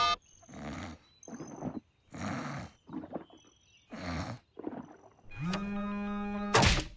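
Cartoon sound effects: a series of rough, noisy growl-like sounds about half a second each, then a held low tone for about a second, cut off by a loud crash near the end.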